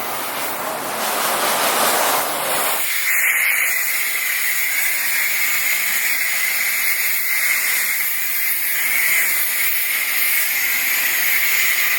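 Car-wash pressure-washer wand spraying water: a steady loud hiss. About three seconds in, its deeper part drops away and the high hiss goes on.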